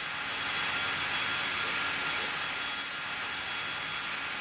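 Chainsaws running steadily, cutting wood, heard as an even, hiss-like mechanical whine.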